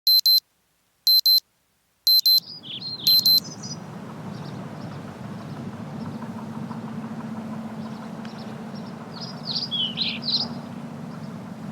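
An electronic alarm beeping, four quick double beeps about a second apart, like a wake-up alarm. Outdoor morning sound follows, with birds chirping and a steady low hum.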